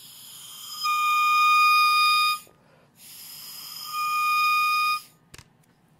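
Oboe reed crowing, blown on its own twice: each blow starts as breathy air, then a single high, steady squeak sounds for about a second and a half before cutting off. It is the first tip crow after the rough scrape, the tip only just starting to vibrate and very resistant.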